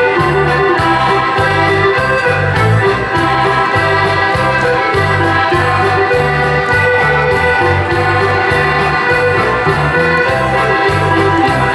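Dutch folk dance music playing for the clog dancers: a sustained, organ-like melody over a steady bass beat about twice a second.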